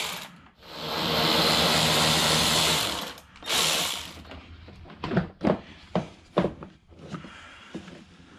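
Cordless power ratchet running in a long burst and then a short one, loosening a fastener on the air intake. Then a run of hollow plastic clunks and knocks as the intake ducting is worked loose.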